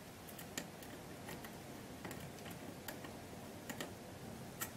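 Precision screwdriver's Phillips bit slipping in a screw whose cross recess is stripped: faint, irregular sharp clicks every half second or so, the loudest near the end. The bit does not catch the worn recess and spins in place instead of turning the screw.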